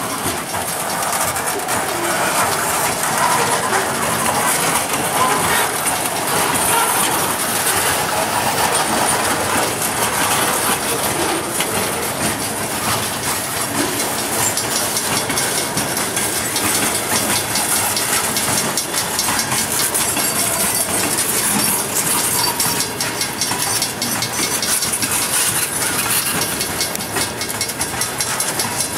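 Freight train cars (covered hoppers and boxcars) rolling past close by: a steady rumble and hiss of steel wheels on rails, with repeated clicks as the wheels pass over rail joints.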